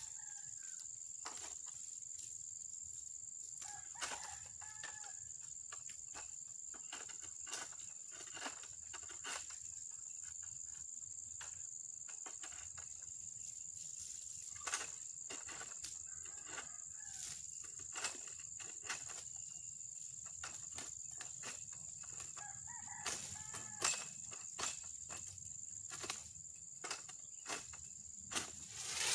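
Chickens clucking now and then over a steady high-pitched insect drone, with scattered sharp clicks and taps; the loudest clicks come near the end.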